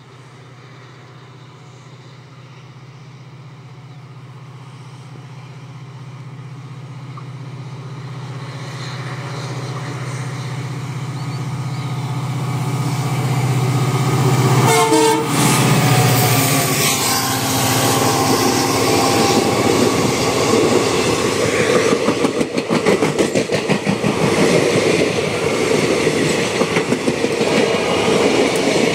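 WDP4 diesel-electric locomotive, with its 16-cylinder two-stroke EMD 710 engine, approaching with a low drone that grows steadily louder and passes about halfway through. Its passenger coaches then roll past with a rhythmic clatter of wheels over the rail joints.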